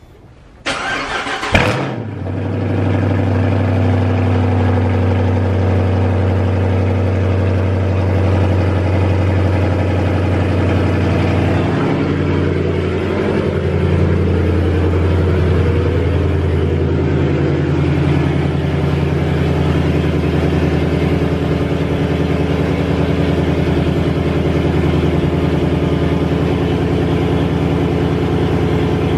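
Hemi V8 cold start: the starter cranks briefly, the engine catches about two seconds in and settles into a steady idle.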